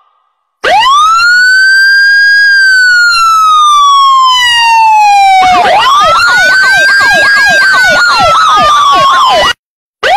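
Siren-like electronic sound effect: a loud wail rises quickly, then falls slowly over about five seconds. A second wail follows with rapid falling chirps layered over it, and it cuts off abruptly near the end.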